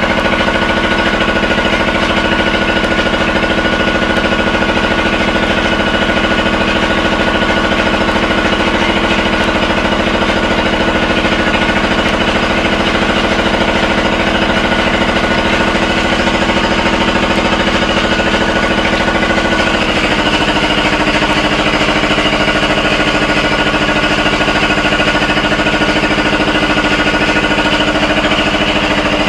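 An engine runs steadily with a fast, even pulsing throughout. Its note shifts slightly higher about two-thirds of the way through.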